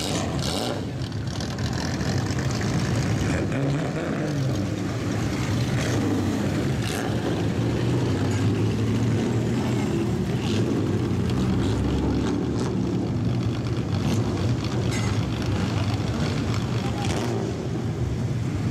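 Engines of lowered classic Japanese cars running as the cars drive slowly past one after another, a steady low exhaust rumble that swells as each car passes.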